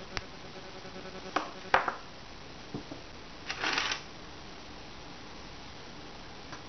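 Small side cutters snipping the wire of a jewellery head pin: a few sharp metallic clicks, the loudest about two seconds in. A brief scraping rustle follows past three seconds as a hand tool is handled on the table.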